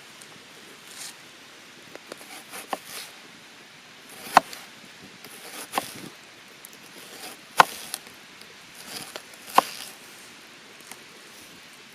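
Wood being chopped or split by hand: four sharp knocks about one and a half to two seconds apart, with smaller taps between, over the steady hiss of a mountain stream.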